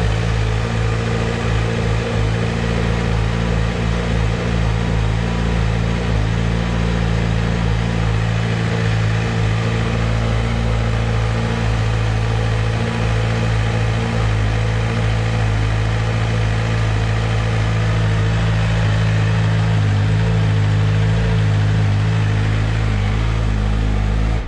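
Stock 2024 Suzuki GSX-R 1000's inline-four engine idling steadily through its factory exhaust, with no revving.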